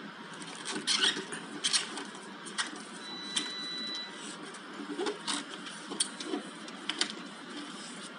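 Rubber refrigerator door gasket being pulled out of its channel by gloved hands: irregular sharp clicks and snaps as it pops loose, with a steady background noise.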